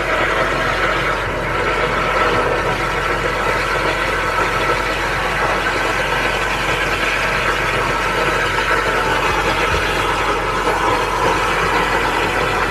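High-pressure drain jetting machine running steadily while its jet hose sprays water inside a blocked floor-trap chamber, flushing out debris.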